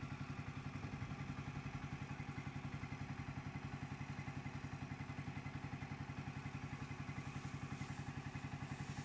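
Engine of a skid-mounted compressed air foam (CAFS) firefighting unit running steadily at idle, with an even rapid pulse of about ten beats a second.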